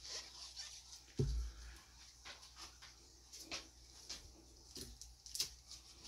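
A single dull thump about a second in, as a paint cup is set down on the table, then a few faint, short clicks and taps from cups and paint supplies being handled.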